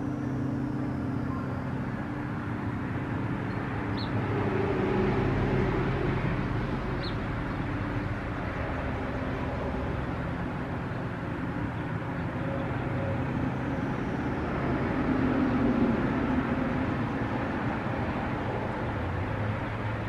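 Steady low background rumble that swells twice, with two faint short high chirps, one about four seconds in and one about seven seconds in.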